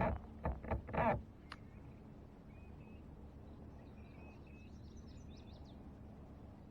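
A few short knocks and bumps in the first second or so, then faint birds chirping in a quick series of short calls.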